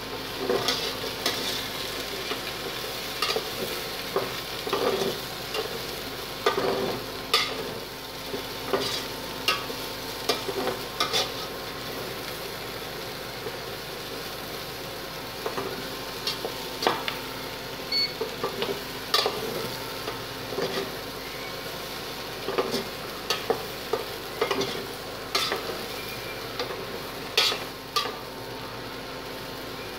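A metal spoon scraping and knocking against a stainless steel pot as diced pork, potatoes, onion and carrots are stirred while they pan-fry, over a steady sizzle. The clatter comes in irregular bunches, with a short lull around the middle.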